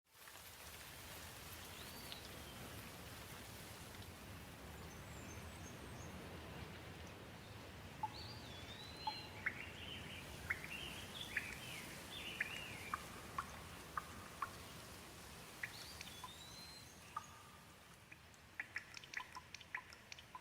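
Gentle, steady light rain, coming back in after a brief dropout at the start. A bird chirps over it, with short gliding whistled notes about two seconds in, a busier run of chirps in the middle and another call near the end. In the last couple of seconds the rain hiss eases and single water drops dripping stand out.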